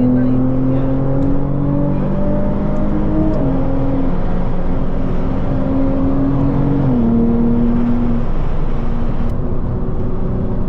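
A car's engine and road noise while driving, a steady loud rumble with a droning tone that shifts pitch in steps every second or two.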